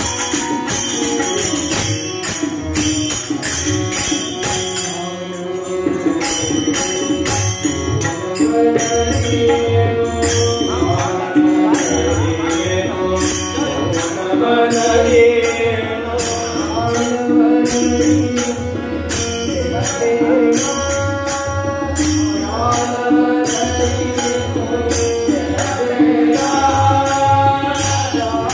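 Men singing a Kannada devotional bhajan, accompanied by tabla, harmonium and small hand cymbals keeping a steady beat.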